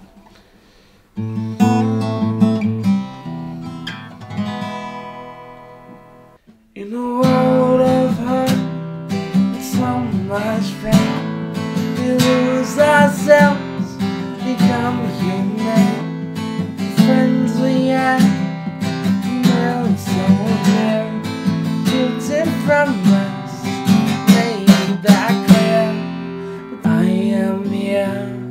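Steel-string acoustic guitar: one chord struck about a second in and left to ring until it fades, then after a short pause a continuous strummed accompaniment in a steady rhythm.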